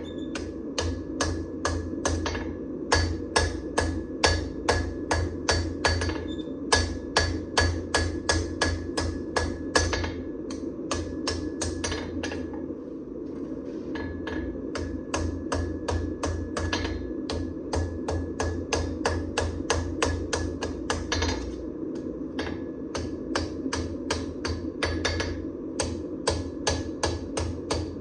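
Hammer blows forging hot damascus steel: runs of quick, regular strikes, about three to four a second, each with a short metallic ring, broken by a few brief pauses. A steady hum runs underneath.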